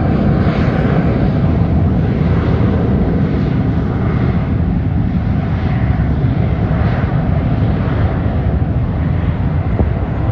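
Jet airliner engines on the runway, a loud steady rumble.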